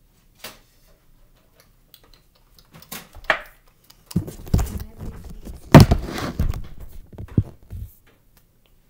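Handling and movement noise: dull thumps and knocks with some rustling, starting about halfway through and loudest a little before two-thirds in, after a few faint clicks.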